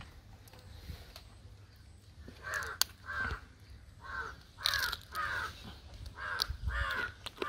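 A crow cawing over and over, about seven short caws in quick groups, starting a couple of seconds in. A single sharp click comes just before three seconds in.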